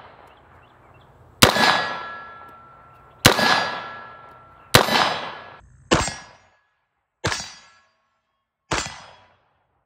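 Six rifle shots at uneven intervals of about one and a half seconds. Each is followed by a steel target ringing as it fades; the last three rings die away sooner.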